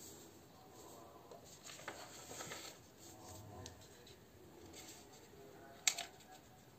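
A sheet of A4 paper being folded by hand: faint rustling and rubbing as the paper is smoothed, creased and slid across the tabletop. One short sharp click about six seconds in is the loudest sound.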